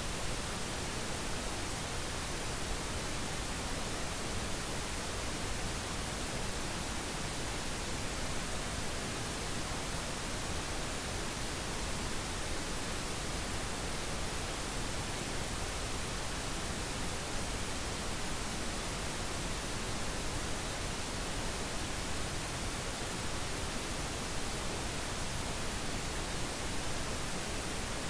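Steady pink noise: an even, unchanging hiss spread across all pitches, with no events or changes.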